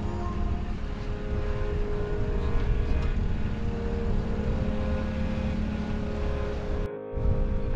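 An engine running steadily with a heavy low rumble and a few held tones over it. The sound drops out briefly about seven seconds in.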